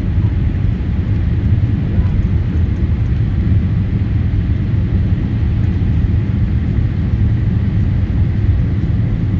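Boeing 787 Dreamliner climbing out just after takeoff, heard from inside the cabin: a steady, loud, low rumble of jet engines and rushing air.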